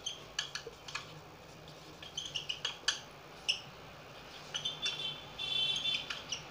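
Marker pen writing on a whiteboard: a string of short squeaks and taps as the letters are drawn, with a longer squeak about five and a half seconds in. A faint steady low hum runs underneath.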